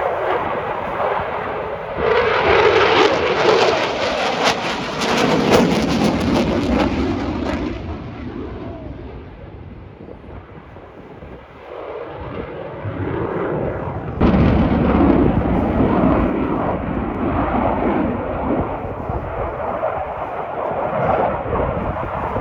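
Military jet flying a display pass: a loud, crackling engine roar that swells about two seconds in, dies away after about eight seconds, and comes back loud and suddenly about fourteen seconds in.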